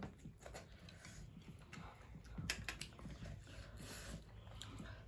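Quiet eating sounds, with a few light clicks of utensils against a plate or bowl.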